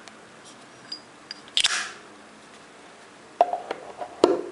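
Metal Zippo lighters being handled: a few light clicks, a short scraping swish about a second and a half in, then a cluster of sharp metallic clinks with a brief ring near the end.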